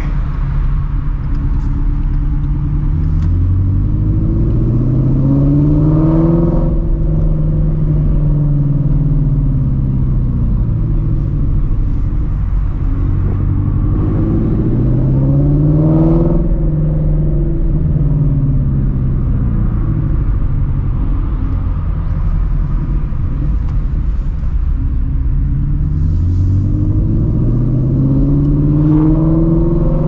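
2016 Shelby GT350's 5.2-litre flat-plane-crank V8, with long-tube headers and a straight-piped exhaust, running under way. It climbs in revs three times, each rise taking a few seconds before the pitch eases back down.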